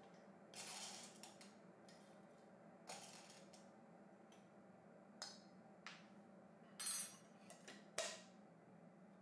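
Coffee beans being spooned from a metal tin into a wooden hand grinder's hopper: a few soft rattles and clinks of beans and spoon. Near the end comes a sharper click as the tin is set down and closed.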